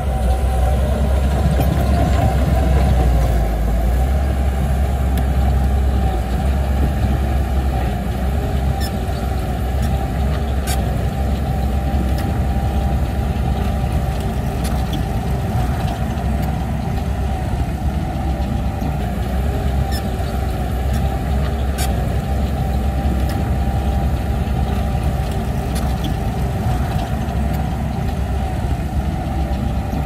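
A bulldozer's diesel engine running steadily under work, with a few sharp clicks now and then.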